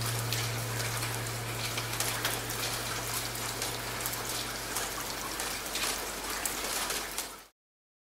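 Steady rain with many close, sharp drop hits, over a low hum that fades away in the first few seconds. Everything cuts off abruptly about seven and a half seconds in.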